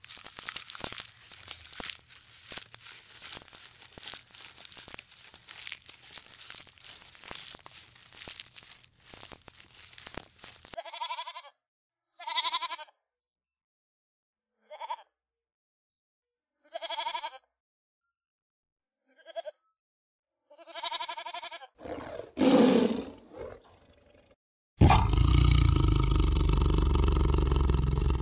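Animal calls: a faint crackling first, then short pitched calls every couple of seconds, and a long, loud call near the end.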